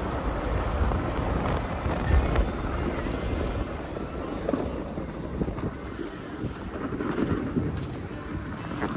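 Wind rushing over the microphone of a skier going downhill, with the skis hissing and scraping over groomed snow. The rush eases off about halfway through.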